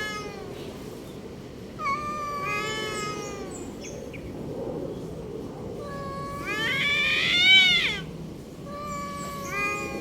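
A domestic cat yowling in long, drawn-out calls, one after another with short gaps. The loudest call comes about two-thirds of the way through, climbing in pitch and then falling away.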